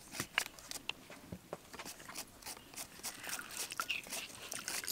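Plastic hand-held citrus press squeezing lime halves: a run of short, irregular clicks and crunches as the lever is worked and the lime is pressed.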